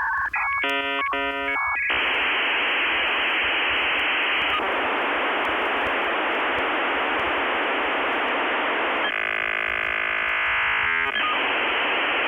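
Steady static hiss, thin and phone-like like an untuned radio. A quick run of beeping tones comes about a second in, and a buzzing tone breaks through the hiss for about two seconds near the end.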